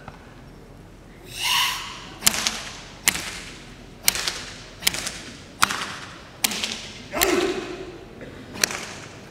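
Open-hand smacks on a karateka's bare tensed body during Sanchin shime testing: eight sharp slaps about a second apart, each with a short echo from the hall. Just before them comes one forceful exhaled breath, the hard Sanchin breathing.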